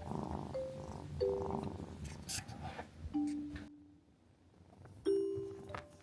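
Soft background music of single bell-like mallet notes, played slowly, over a kitten's low purring that cuts off about three and a half seconds in.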